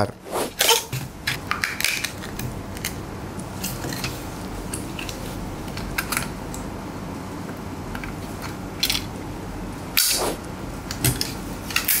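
Handling sounds of unpacking an Intel Core i7-12700K processor and fitting it into a motherboard CPU socket: cardboard box rustling and a quick run of clicks at first, then scattered small plastic and metal clicks, with a louder click about ten seconds in.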